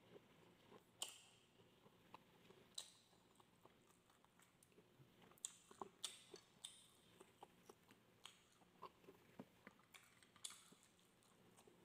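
Faint close-up chewing and mouth sounds of a person eating grilled barbecue skewers and rice: scattered small smacks and clicks, more frequent in the second half.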